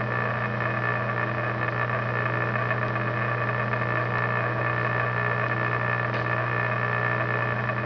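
Metal lathe running steadily, turning a choke-tube reamer that cuts into a shotgun barrel's muzzle as the barrel is fed onto it. It makes a steady hum with a few high tones above it.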